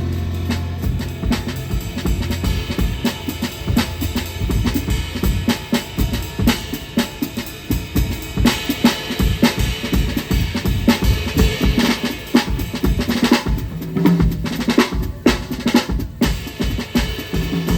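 Jazz drum kit played busily and fast, snare, bass drum and rim shots to the fore, with a few low notes beneath from the band.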